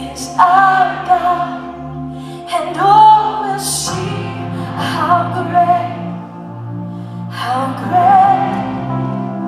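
A woman singing a slow song live with a band, in four sung phrases over held keyboard chords and bass notes.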